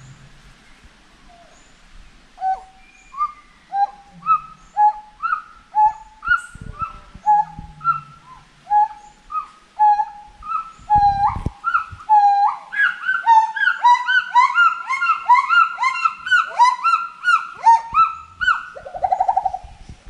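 Gibbons singing: a run of rising whoops that speed up, with a second, higher voice joining in. The calls build to a dense, overlapping climax and end in a quick trill.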